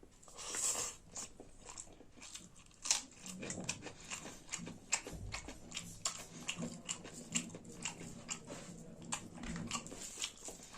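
A person chewing a mouthful of rice and saag close to the microphone, with wet smacking and many small irregular mouth clicks.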